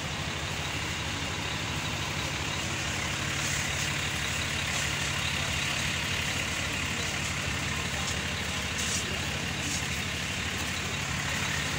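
Ferry's engine running steadily: a low, even drone with a fast pulse.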